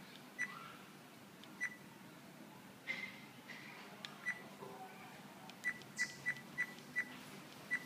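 DR32 dash camera beeping at each button press as its menus are stepped through: short, identical high beeps, a few spaced about a second apart, then a quick run of about six near the end.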